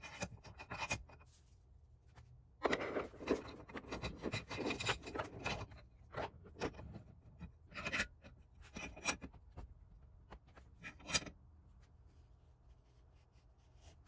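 Steel roller drive chain being handled and laid into the jaws of a steel bench vise: a run of short metallic clinks and rattles as the links knock against each other and the vise, in clusters over several seconds.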